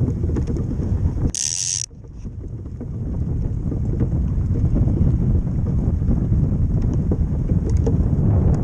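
Ice boat under sail: wind rushing over the microphone and the runners rumbling and rattling on the lake ice. About a second and a half in there is a brief high hiss, after which the rumble drops off and builds back up over a couple of seconds.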